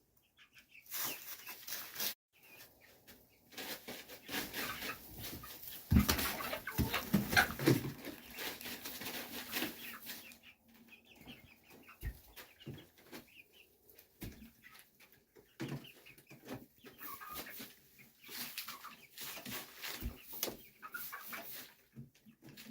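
Chickens clucking on and off, with scattered rustling and a few sharp knocks.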